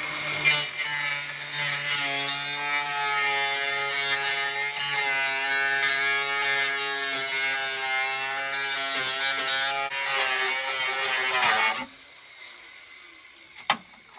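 Handheld electric power tool running steadily at one buzzing pitch for about twelve seconds, then cutting off suddenly. Two sharp clicks follow near the end.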